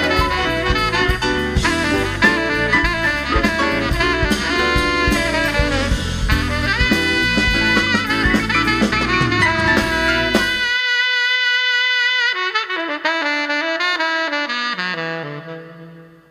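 Saxophone playing jazz with a band and drum kit; about ten and a half seconds in it cuts abruptly to an unaccompanied saxophone playing a slow line that steps down in pitch and fades out near the end.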